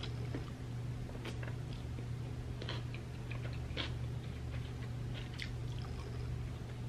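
Close-up chewing and mouth sounds of a person eating by hand: scattered soft smacks and clicks over a steady low hum.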